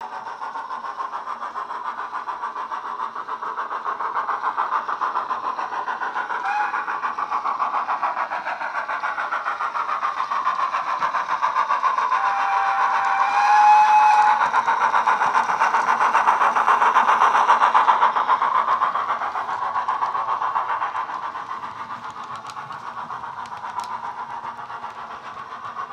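Hornby 9F model steam locomotive's Wheeltappers DCC sound decoder playing steam-engine chuffing through a small 25x18 megabass speaker, a quick steady beat that grows louder and then fades. A whistle sounds about halfway through.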